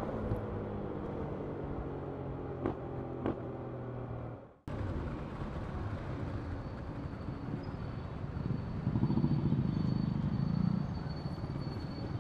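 Motorcycle engine running steadily, with two light clicks, until a sudden cut about four and a half seconds in. Then the riding sound of a KTM Duke 250's single-cylinder engine under road and wind noise in traffic, louder for a couple of seconds near the end.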